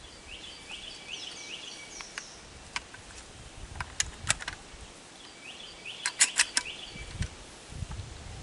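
Sharp metallic clicks of 12-gauge shells being worked into the Century Arms PW87 lever-action shotgun, scattered at first, then a quick run of the loudest clicks about six seconds in. A bird calls in two spells of repeated chirps in the background.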